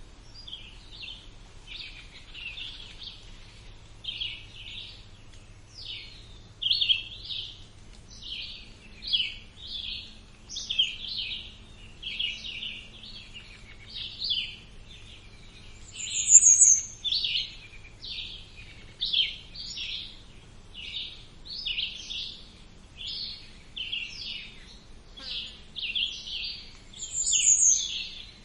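Songbirds singing: a dense, unbroken run of short chirping notes, and twice a brief high note that drops in pitch. A faint steady low hum sits underneath.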